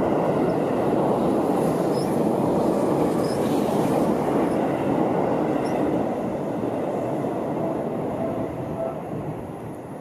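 Seibu Shinjuku Line electric commuter trains running past close by, a steady rumble of wheels on rail. The sound fades over the last few seconds as the trains move off.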